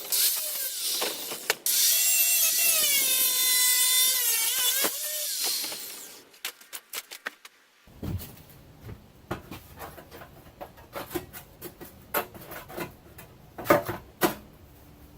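Handheld electric power tool cutting rusted body metal, its motor whine dipping and rising under load, then winding down about six seconds in. After that come scattered clicks and knocks of metal being handled.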